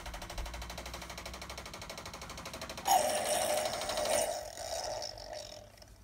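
Tassimo Vivy T12 capsule coffee machine brewing a hot chocolate T-disc: its pump buzzes in a fast, even pulse. About three seconds in, a louder hissing splutter starts as the drink comes through the spout, then dies down near the end.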